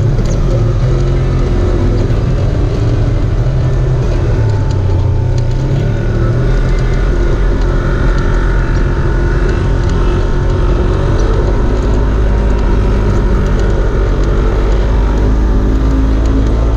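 A vehicle engine running steadily at low revs, its note shifting slightly a few times, with a strong low rumble underneath.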